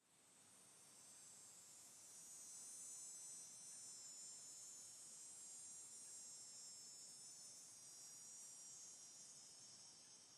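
Cicada singing: a steady, high-pitched buzz that starts suddenly and swells over the first two seconds.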